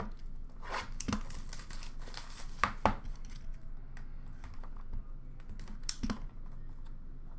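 Hands opening a cardboard box of Upper Deck Splendor hockey cards: handling noise and light taps, with a few sharp rips about a second in, twice near three seconds, and once near six seconds.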